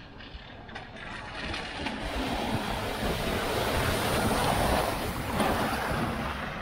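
Peugeot Boxer flatbed van driving through a shallow flooded ford, its tyres splashing and hissing through the water over the engine noise. It grows louder as the van comes close, then eases off near the end as it pulls away on the wet road.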